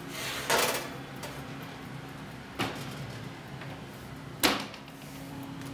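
A baking pan is slid out over a wire oven rack with a short scrape and clatter, followed a couple of seconds later by a lighter knock, then the oven door shutting with a sharp bang about four and a half seconds in.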